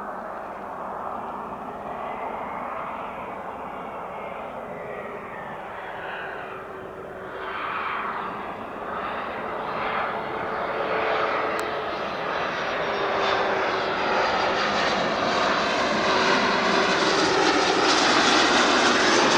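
Cessna Citation Longitude business jet coming in to land, its twin turbofans whining and growing steadily louder as it approaches.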